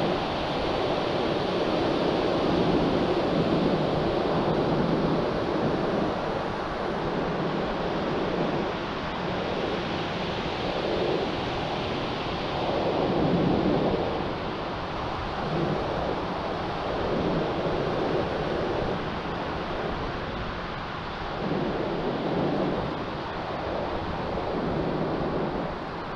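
Wind buffeting the microphone in irregular gusts, over a steady wash of surf.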